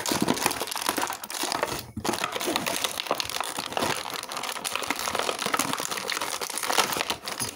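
Toy packaging crinkling and rustling as it is handled and opened, a dense run of small crackles with a short break about two seconds in.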